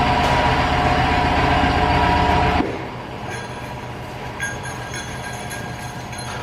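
Steady mechanical hum of a running motor, likely milking-parlor equipment. About two and a half seconds in it drops sharply to a quieter hum with faint high ringing tones.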